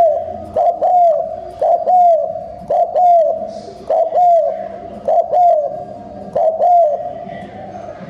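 Spotted dove giving fast, repeated coos while bowing: short hooting notes, mostly in pairs about a second apart, that stop about seven seconds in.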